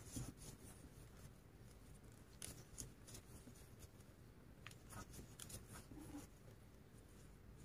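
Near silence with faint scattered clicks and rustles of a crochet hook pulling thick macramé cord through stitches, a few at a time with a small cluster past the middle.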